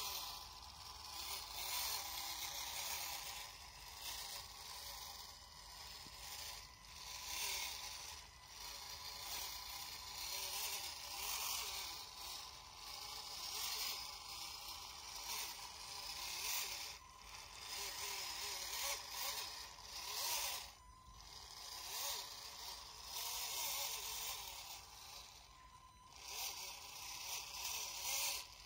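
Small electric drive motor and gears of a radio-controlled scale model truck whirring, swelling and easing off every second or two, with scraping and rustling as the tyres push through mud and weeds.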